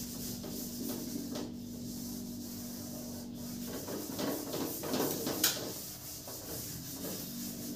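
Handwriting strokes on a writing surface, with a low steady hum that stops about halfway through.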